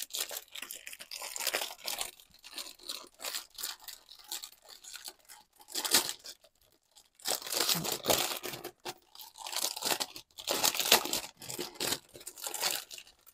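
Packaging being torn and crinkled by hand: irregular rustling and tearing in fits and starts, with a brief lull about six and a half seconds in.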